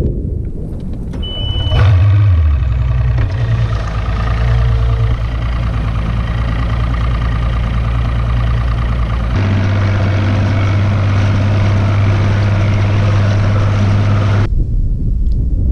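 Bass boat's outboard motor running steadily, starting about two seconds in just after a short high beep. Its note changes abruptly about halfway through and it cuts off sharply near the end.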